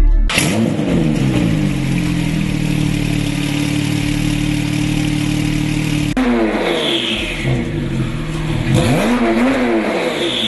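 Porsche 991 Turbo's twin-turbo flat-six running through a QuickSilver sport exhaust. About half a second in it starts abruptly, its revs climb and then hold steady for several seconds. After a sudden cut the engine is blipped, the revs rising and falling, with short hissing whooshes twice.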